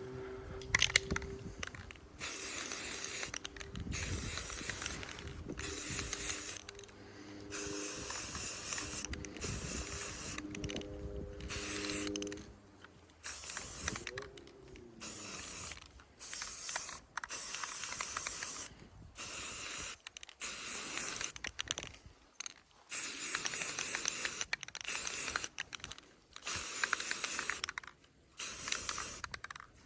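Aerosol spray can of flat earth brown paint being sprayed in a run of short hissing bursts, about a dozen, each a second or two long with brief pauses between, as a light dusting coat goes onto a rifle.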